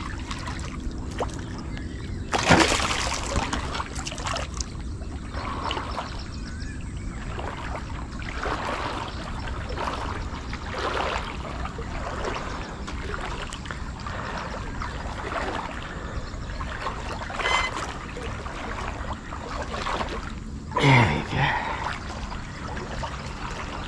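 A hooked snakehead splashing at the surface of shallow weedy water as it is reeled in, with one loud splash about two and a half seconds in and smaller splashes after.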